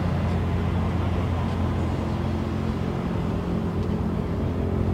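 An engine idling steadily nearby: an even, low, unchanging hum.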